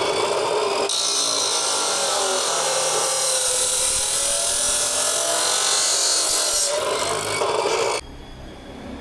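Cutoff saw cutting a length of metal hat channel: a steady cutting hiss over the motor's whine, which wavers in pitch under load. The cutting sound grows stronger about a second in and falls to a quieter run about eight seconds in.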